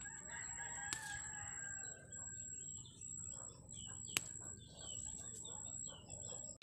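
A rooster crowing once, faintly: one long call of about two and a half seconds that sags a little at the end. There is a steady thin high tone underneath, and two sharp clicks, about a second and about four seconds in.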